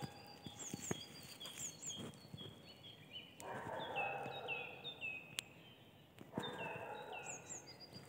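Several small songbirds singing: many short, high notes repeated in series, some falling in pitch, overlapping from more than one bird. Two spells of rustling steps in dry leaf litter come in, about three and a half seconds in and again past six seconds.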